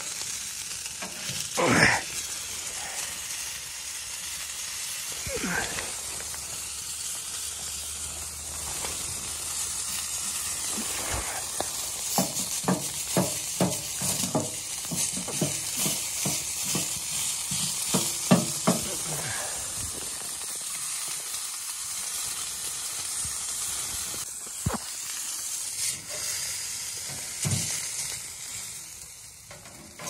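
Chicken pieces sizzling in a hinged wire grill basket held over a wood-burning stove top, a steady hiss of fat and juices cooking. Metal scrapes and a run of quick clinks and clatters from the wire basket being moved on the stove are heard, loudest about two seconds in and in the middle.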